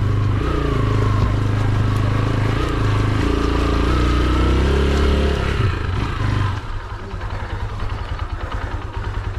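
AKT TT 200 DS's single-cylinder engine pulling the bike along a dirt trail, its pitch shifting with the throttle. About six and a half seconds in, the throttle comes off and the engine drops to a lower, evenly pulsing run.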